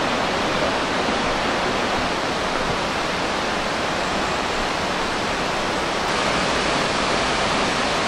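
Steady, even rush of a waterfall's falling water.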